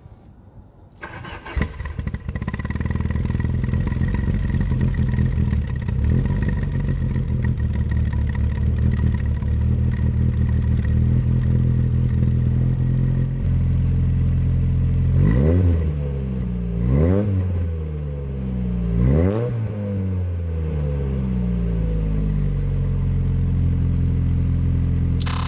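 Mk2 VW Golf GTI's four-cylinder engine, not run for a while, starting about a second in and settling into a steady idle, heard at the exhaust tip. It is revved in three quick blips between about fifteen and nineteen seconds in, then idles again.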